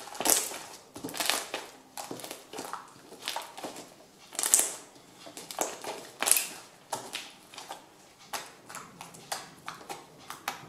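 Homemade slime being pressed, poked and kneaded by fingers, making irregular sticky pops and crackles. Several louder pops come just after the start, and again about four and a half and six seconds in.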